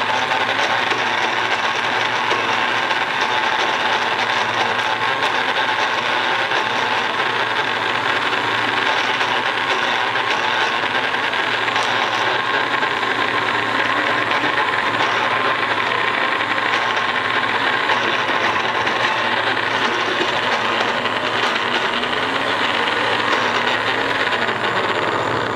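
Electric blender motor running steadily with its small grinding jar, chopping green chilies and aromatics into a coarse green paste.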